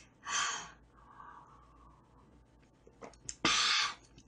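A woman's breathy, satisfied exhale ('kya-ha') after a gulp of drink, near the end, with a shorter breath about half a second in and a couple of small clicks just before the exhale.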